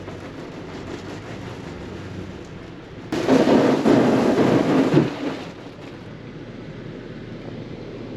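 Water from center-pivot irrigation sprinklers spraying down, a steady rain-like hiss that turns much louder and heavier for about two seconds midway as the spray comes over.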